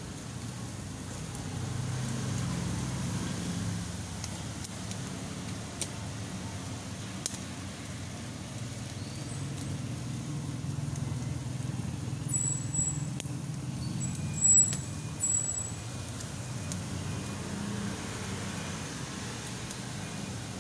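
Pork grilling over charcoal, with a faint hiss and a few sharp isolated crackles over a steady low rumble. Short high chirps come about two-thirds of the way through and are the loudest sounds.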